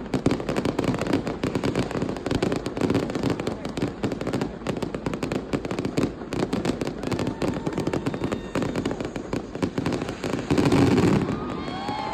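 Fireworks and firecrackers going off all around in a dense, continuous crackle of rapid pops. There is a louder burst about ten and a half seconds in, and falling whistles start near the end.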